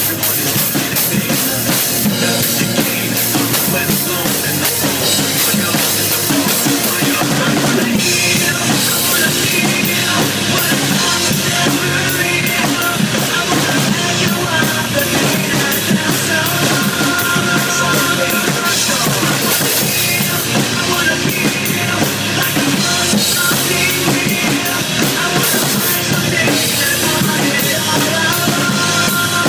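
Acoustic drum kit played in a rock style, with cymbals, snare and bass drum struck continuously and the pattern changing about eight seconds in.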